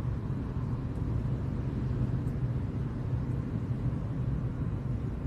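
Steady low background rumble at an even level, with no distinct events.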